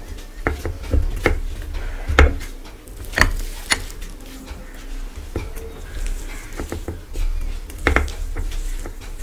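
Hand-mixing rice and mashed potato on a plate with bare fingers: soft handling sounds with irregular clicks and taps of fingers against the plates and bowls. The loudest taps come about two, three and a half, and eight seconds in.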